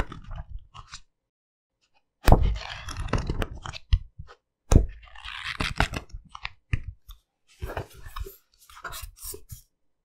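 Paper book pages flipped quickly: runs of rapid page rustling and flicks, separated by brief pauses, thinning to scattered single page flicks near the end.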